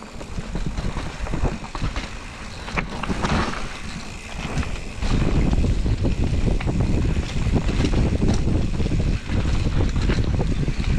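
Canyon Lux full-suspension mountain bike riding down rough trail: tyres rolling over dirt and stones, the bike rattling and knocking over the bumps, with wind on the microphone. The clatter gets much louder and heavier about halfway through.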